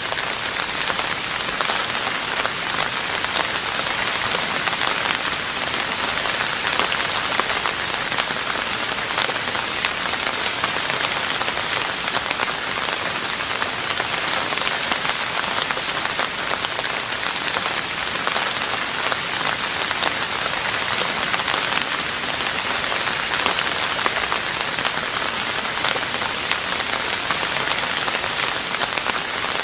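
Steady rain falling on a roof: a dense, even hiss of many drops, unchanging throughout.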